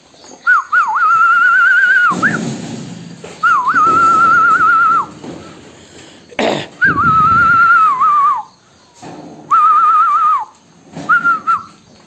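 A person whistling a quavering, warbling note in about five short phrases of one to two seconds each, at a steady pitch. Under and between the whistles comes the lower, rougher noise of the flock of lambs milling about.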